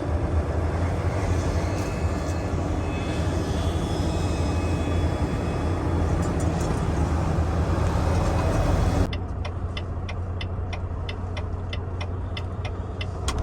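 Semi-truck cab interior: the engine running with road noise, a steady low drone. About nine seconds in the sound cuts abruptly to a quieter, duller cab drone with a regular ticking about twice a second.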